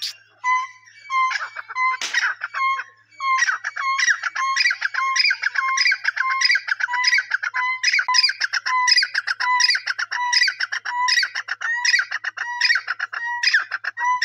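Teetar (francolin) calling: a loud series of shrill calls, each a short lower note followed by quick higher notes, repeated about one and a half times a second, with a short break about three seconds in.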